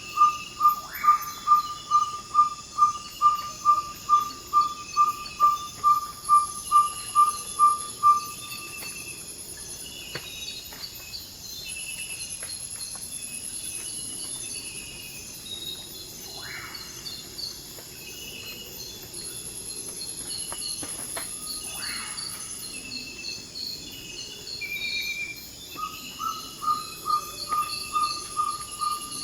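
Ferruginous pygmy owl giving its territorial advertising call, a long series of evenly repeated 'toop' whistles at about two to three notes a second. The series stops about a quarter of the way in and starts again near the end, over a steady chorus of rainforest insects.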